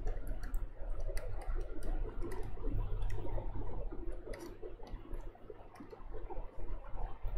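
Irregular light clicks and taps of a stylus on a pen tablet while handwriting is written, over a low steady hum.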